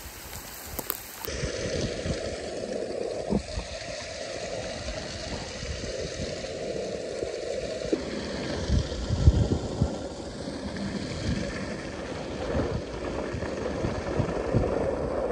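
Water hissing and spraying from a leak in a worn layflat hose, shooting high into the air.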